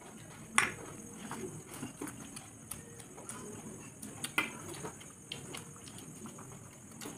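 Two people eating rice and egg curry with their bare hands from metal plates: wet squishing of rice being mixed and mouth sounds of chewing, with scattered clicks and taps, the loudest about half a second in.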